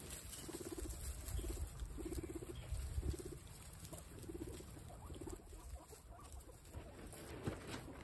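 Guinea pig purring: about six short, low buzzing bursts in the first five or six seconds, while wind rumbles on the microphone.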